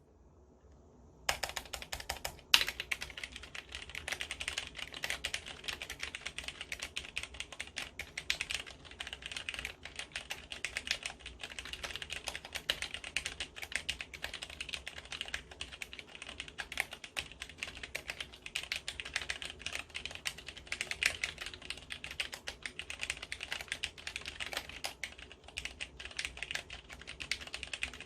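Continuous fast typing on a Cherry MX Board 3.0S, a mechanical keyboard with no reinforcing steel plate, Cherry MX Red linear switches and ABS keycaps. The rapid run of keystrokes starts about a second in.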